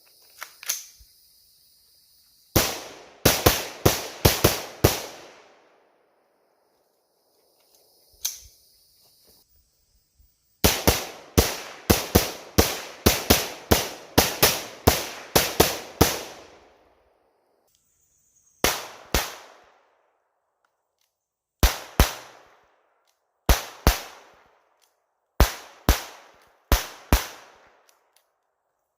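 .22 rimfire rifle gunfire. A quick string of about six shots, then a longer rapid string of about fourteen, then a few evenly spaced pairs of shots near the end.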